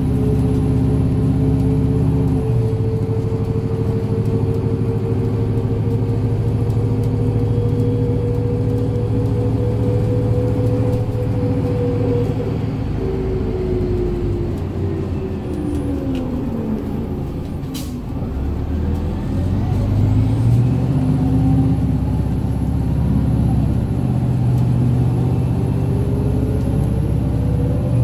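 Inside a New Flyer D60LF articulated diesel bus under way: the engine and drivetrain drone steadily, their pitch sliding down through the middle as the bus eases off, with a single sharp click, then climbing again as it picks up speed.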